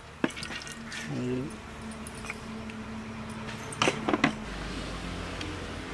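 Cooking oil heating in an aluminium kadai over a wood fire, with a faint crackle and a few sharp clicks and taps, the loudest cluster about four seconds in.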